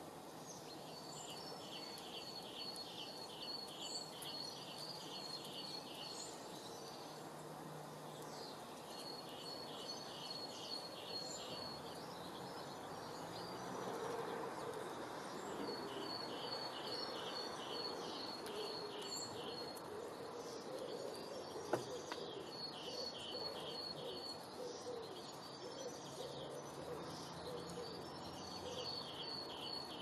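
A songbird singing phrase after phrase of evenly spaced high notes, about three a second, each phrase lasting several seconds with pauses between, over faint steady outdoor background noise. A single sharp click comes about two-thirds of the way through.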